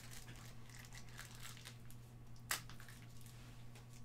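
Trading cards and foil pack wrappers being handled: light crinkling and rustling, with one sharp click about two and a half seconds in, over a steady low hum.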